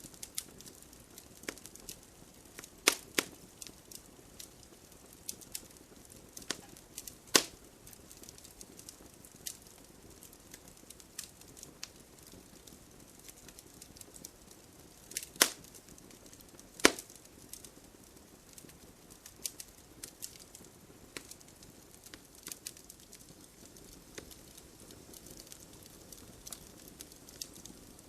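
Wood fire crackling: irregular sharp pops and snaps over a low steady hiss, with a few louder pops.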